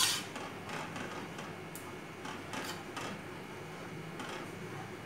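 Spoon stirring a thickening semolina-and-milk sauce in a pan, with light repeated scrapes against the pan and one louder scrape right at the start.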